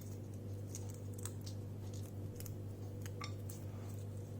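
Faint, scattered clicks and small crackles of dry roasted black cardamom pods being split open by hand to take out the seeds, over a steady low electrical hum.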